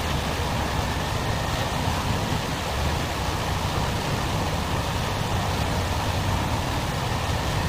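Steady rush of flowing floodwater mixed with the low rumble of a vehicle engine running.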